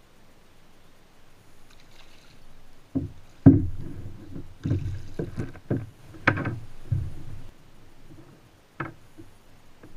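A run of irregular thumps and knocks against a plastic sit-on-top kayak, with splashing, as a hooked threadfin salmon is brought alongside and lifted aboard. The thumps start about three seconds in, and the loudest comes soon after.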